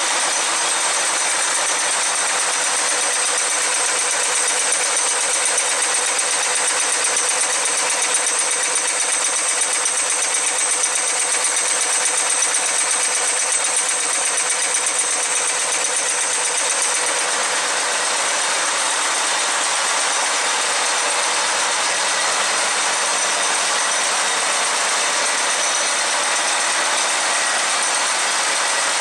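HS100 high-speed, bearing-type wire nail making machine running: a rapid, even mechanical clatter from its strokes, with a steady high whine over it.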